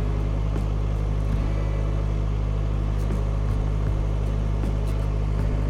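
Narrowboat's diesel engine running steadily under way, a constant low hum.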